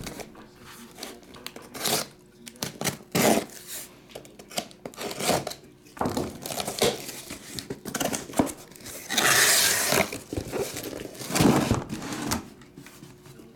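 Cardboard shipping case being handled and opened: irregular scraping, rustling and knocks of cardboard on the table, with a long rip of packing tape being torn about nine seconds in.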